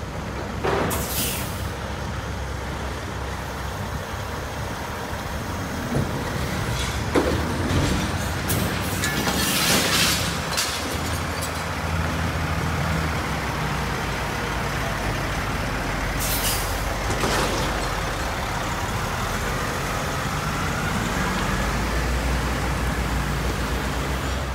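Semi truck's diesel engine running steadily, with several hisses of air released, the longest about ten seconds in. A slowly rising whine comes in near the end.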